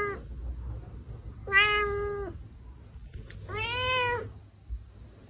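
Domestic cat meowing: the end of one long meow, then two more about two seconds apart, the last one rising and then falling in pitch.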